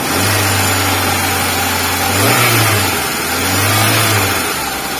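Kia Visto's four-cylinder petrol engine running just after starting, with a newly replaced timing belt: the engine now fires and runs instead of cranking without compression. Its speed rises briefly twice, a little after two seconds in and again about four seconds in.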